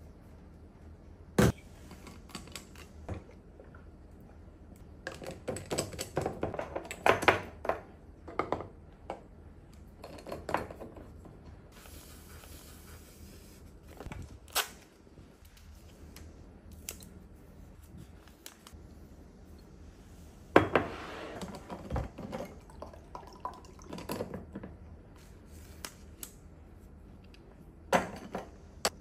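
Hands handling kitchen storage containers and glass bottles on a countertop: scattered clicks, taps and clinks with a few louder knocks, and a brief even hiss in the middle.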